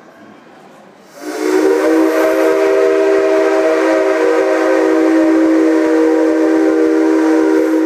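Whistle of a C57 steam locomotive sounded in one long, steady blast of several pitches at once. It starts about a second in and holds for about six and a half seconds.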